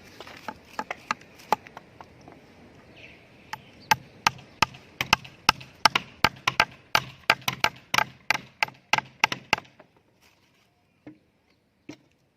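Hammer driving nails into wooden formwork boards: a long run of sharp blows, about three a second, that stops about two-thirds of the way through, with two lone knocks near the end.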